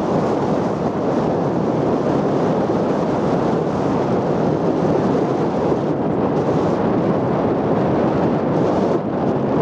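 Wind buffeting the microphone: a steady, loud rush of noise with no distinct engine note.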